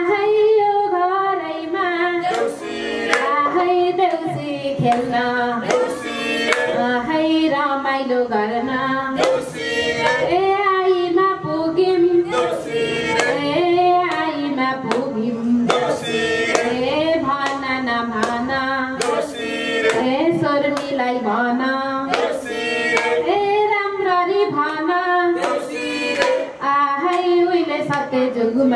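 A woman singing a song into a microphone, with several people clapping along in a steady rhythm.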